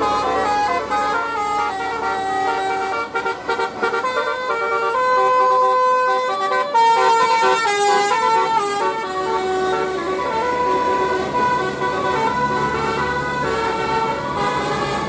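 Bus 'telolet' musical air horn playing a tune of short stepped notes, one note after another through the whole stretch, with a burst of hiss about eight seconds in.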